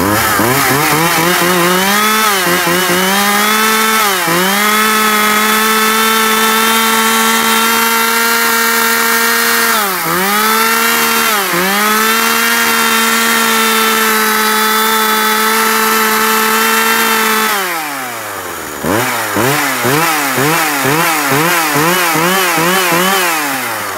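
Husqvarna 142 chainsaw's 40cc two-stroke engine being test-run: held at high revs with a few brief dips, then about three quarters of the way through it falls off and is blipped up and down about twice a second.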